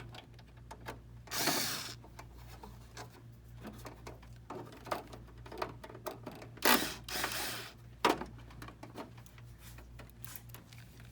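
Hands working on a copier's finisher unit: scattered clicks and knocks of plastic and metal parts, with two brief louder scraping, rubbing noises, about a second and a half in and near the middle, over a low steady hum.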